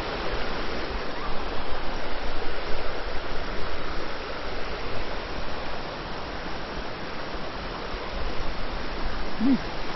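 Steady rush of a stream's flowing water, an even noise that swells and eases a little. A short voice sound near the end.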